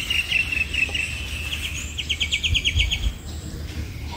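A songbird singing: a run of sharp chirps that turns into a quick, even trill of about ten notes a second about two seconds in, over a low rumble.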